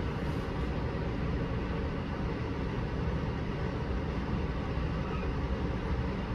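Steady room tone: an even low rumble with a fainter hiss above it and no distinct events.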